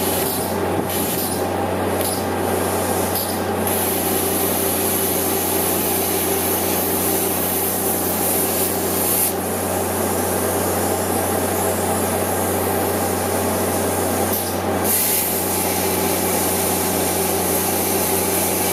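Hand-held plasma cutter cutting through the welds of rusted steel hull plate: a loud, steady hiss and buzz over a low hum. The hiss briefly falters a few times in the first few seconds.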